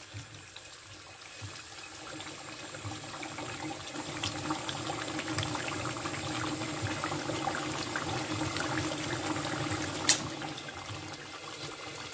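Spicy duck curry gravy bubbling and spluttering in an aluminium pot on a gas stove, the meat close to done; the bubbling grows busier after a couple of seconds. A single sharp click about ten seconds in is the loudest sound.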